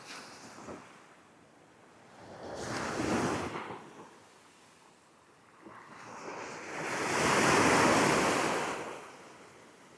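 Waves breaking and washing up a beach, twice: a smaller wave about three seconds in, then a louder, longer one peaking about eight seconds in.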